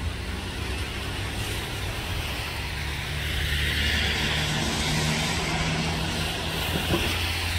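Road traffic: a steady hum of car engines with tyre hiss that swells and fades as vehicles pass.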